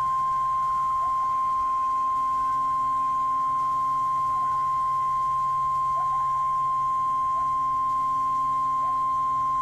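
Emergency Alert System attention tone: a single steady electronic beep, held for almost ten seconds and cutting off abruptly, announcing the emergency alert message that follows.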